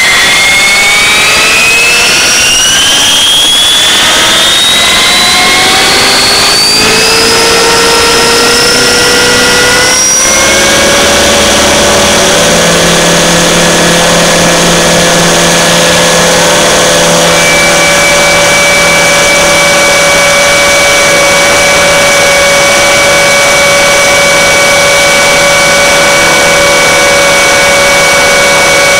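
Align T-REX 600 RC helicopter's motor and rotor drivetrain, heard from a camera mounted on the helicopter. It rises steadily in pitch for about ten seconds as the rotor spools up, then holds a steady pitch at flying speed.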